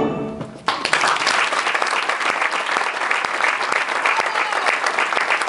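The last of a concert ensemble's final chord fades out, and under a second in the audience breaks into applause, a dense steady clapping that carries on.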